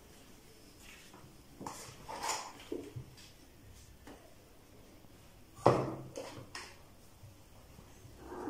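Scattered scuffles and light knocks, with one sharp knock, the loudest, about two-thirds of the way through.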